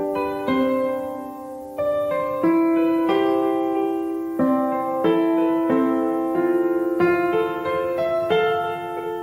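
Background piano music: single notes and chords, each struck and fading, changing about once a second.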